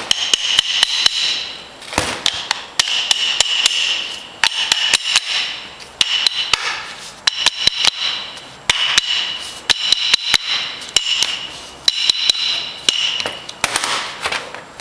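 Hammer tapping on the rear cylinder head of a GM A6 automotive air-conditioning compressor to loosen it off the body: a long run of quick, light metal-on-metal taps, each leaving a short ringing tone.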